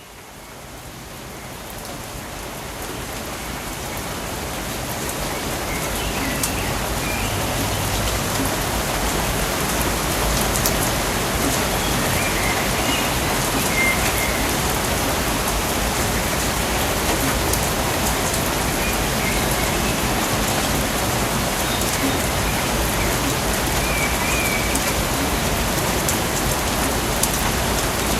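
Steady rainforest rain pattering on foliage, fading in over the first few seconds and then holding steady, with a few faint chirps now and then.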